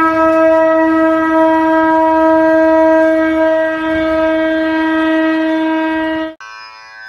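A conch shell (shankha) blown in one long, steady note that cuts off abruptly about six seconds in, sounded as the opening call before devotional chanting. A quieter pitched drone follows.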